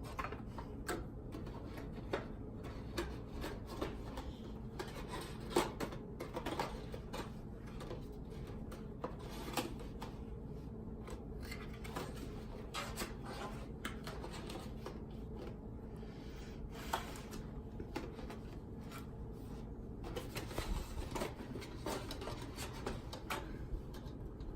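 Small plastic toy figures and a plastic storage case being handled: scattered light clicks and taps, over a steady low background hum.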